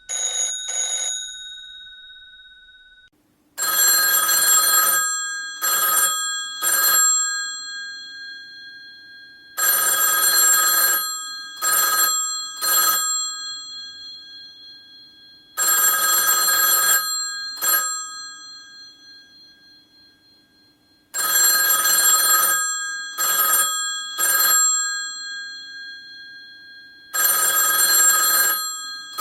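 Old telephone's bell ringing in a repeating cadence: one long ring of about a second and a half, then two short rings, the cycle coming round about every six seconds, each ring's tones dying away between rings. Near the start, two short rings of a different ring tone end and fade out before this pattern begins.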